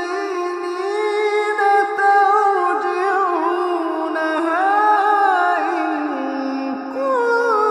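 Melodic Quran recitation: a single voice chanting in long, drawn-out held notes that glide up and down in pitch, without a break.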